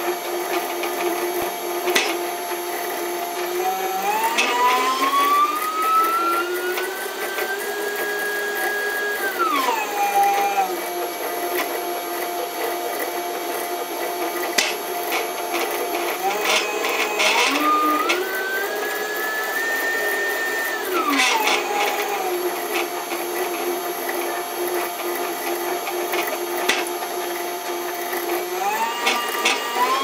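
Stepper motor drive of a home-built CNC mini lathe: a steady whine while the motors hold, then twice the Z-axis stepper ramps up into a rising whine, holds a high note for a few seconds and winds back down as the carriage travels along the ball screw. A third rise starts near the end, with occasional sharp clicks along the way.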